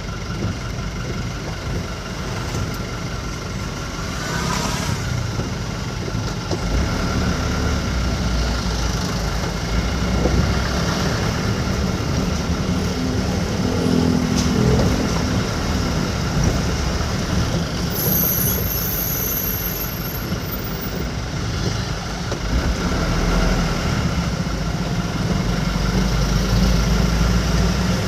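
Vehicle engine and road noise heard from inside the cab while driving, a steady low rumble that swells a few times.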